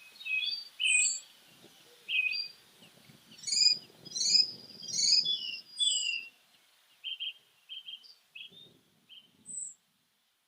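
Small songbirds chirping: a run of short, high chirps and quick sliding whistled notes, several overlapping and busiest in the middle.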